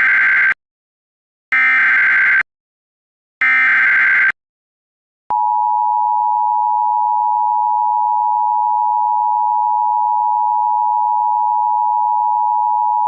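Emergency Alert System tones: three short bursts of the SAME digital header, about two seconds apart, then the steady two-tone EAS attention signal starting about five seconds in and holding. This sequence announces an emergency alert, with the spoken message to follow.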